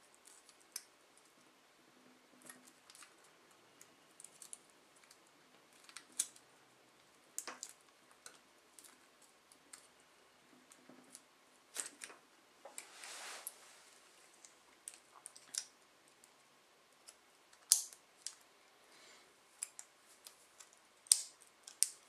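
Small scattered clicks and scrapes of thin aluminium Coke-can shims being pushed and twisted into a padlock's shackle, with one longer scrape about thirteen seconds in.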